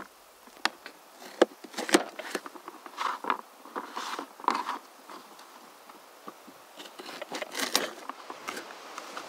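Knife slicing baby carrots on a plastic cutting board: an irregular run of sharp chops and crunches, with a quieter pause of a couple of seconds in the middle.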